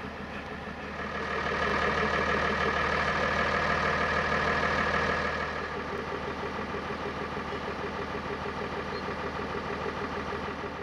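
Bo-Bo diesel-hydraulic locomotive's engine idling, its note rising louder about a second in and settling back to idle about five seconds in.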